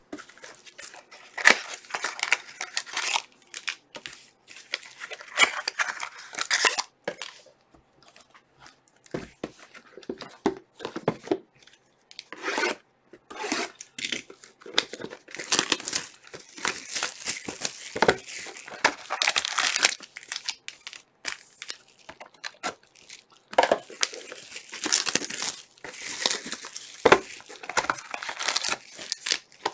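Plastic wrapping being torn and crinkled off sealed trading-card boxes, in repeated bursts with knocks and scrapes as the boxes are handled.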